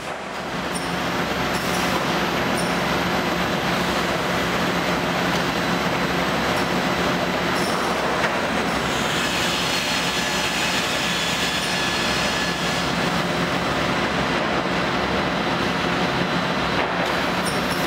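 Plywood cutting plant with Zaffaroni MLS multirip saws and panel conveyors running: a steady, dense machine noise with a low hum, fading in over the first couple of seconds. A brighter hiss rises for a few seconds in the middle.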